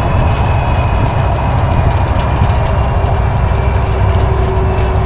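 A vehicle's differential running on the road, recorded up close: a steady low rumble with a faint whine over it. This is a noise while driving although the gears are in good condition, the kind that can come from worn differential bearings.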